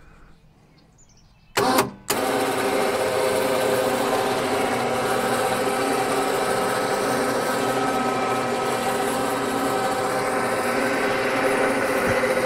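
A short clatter about a second and a half in, then the electric winch on the cart's front bumper runs steadily, paying out cable to lower the front end of the cart.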